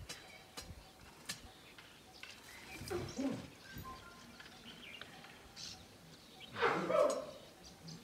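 Outdoor summer ambience with birds chirping and scattered short, sharp clicks. A louder sound lasting about half a second comes about seven seconds in.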